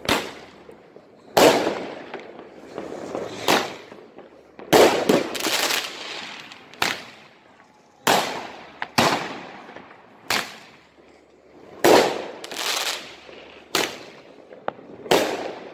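Fireworks going off: more than a dozen sharp bangs from bursting rockets and firecrackers, irregularly spaced about a second apart, each trailing off in an echo.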